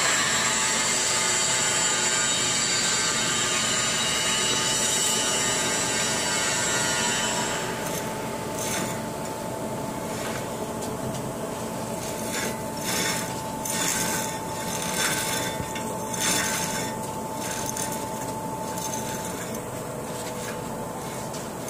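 Steady mechanical running noise with a constant whine. About eight seconds in the high hiss falls away, and a series of irregular rasping scrapes follows.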